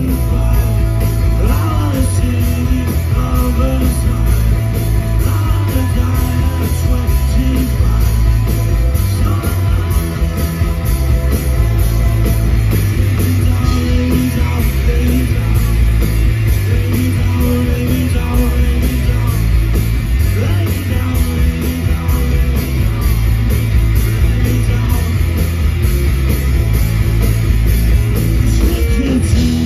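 Rock band playing live at full volume: distorted electric guitars, bass guitar and drum kit with a driving beat.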